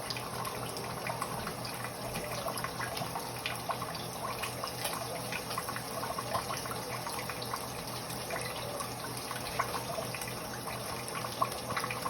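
Kitchen tap running into a sink, with small irregular splashes as raw chicken is rinsed under it, over a steady low hum.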